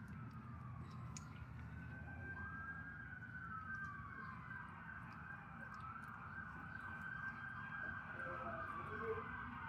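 Emergency-vehicle sirens wailing, their pitch sweeping slowly up and down, with two or more sirens overlapping and growing a little louder.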